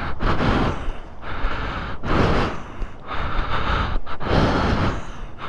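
A person breathing close to the microphone, several breaths in and out in repeated swells.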